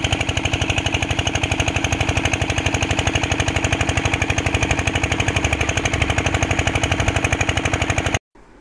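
Small diesel engine of a portable water pump running steadily with a rapid, even beat as it pumps water out of a flooded excavation. The sound cuts off abruptly near the end.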